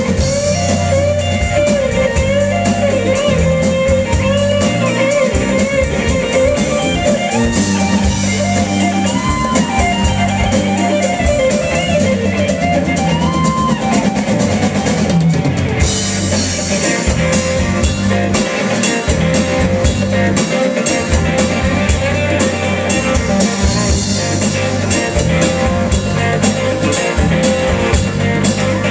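Live rock band playing: an electric guitar plays a lead line with bent and sliding notes over a drum kit with a steady hi-hat beat, bass and keyboard.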